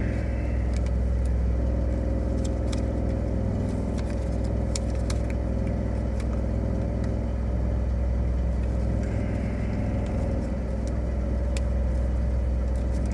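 Car engine idling, heard from inside the cabin as a steady low rumble, with a few faint clicks scattered through.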